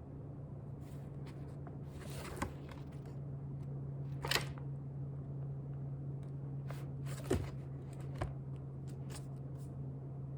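Book pages rustling, with a page turned about four seconds in and a few softer rustles and light taps around it, over a steady low hum in the room.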